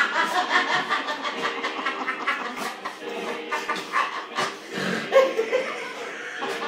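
Small white-and-tan terrier growling and barking in short bursts as it lunges at a lighter flicked in front of its face.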